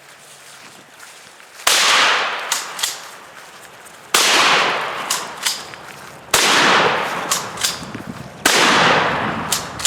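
Four shotgun shots about two seconds apart, each trailing off over a second or so with a few short sharp cracks after it.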